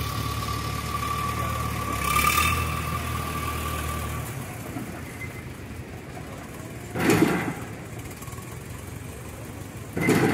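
Case tractor engine running under light throttle as it creeps up onto the tilting beam, louder for the first four seconds and then easing back to a quieter run. Two short loud bursts stand out, about seven seconds in and again near the end.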